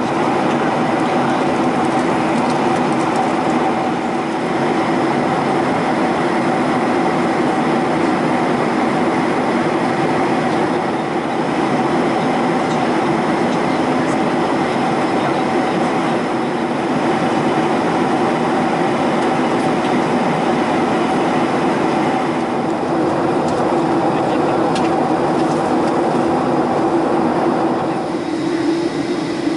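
Steady cabin drone of a jet airliner in flight, heard from a seat by the window: engine and airflow noise running evenly. It eases slightly near the end.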